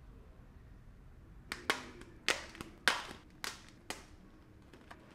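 A string of about seven sharp, crisp clicks or snaps over two and a half seconds, most at an even pace of a little under two a second, each with a short fading tail, after a quiet first second and a half.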